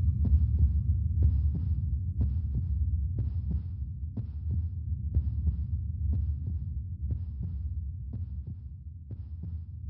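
Soundtrack sound design: a steady low hum under a heartbeat-like double beat about once a second, easing off slightly near the end.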